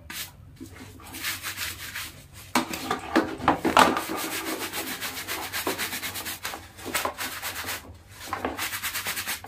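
A sponge lathered with shampoo scrubbed hard over a bag's surface in quick, repeated rubbing strokes, with a couple of short pauses.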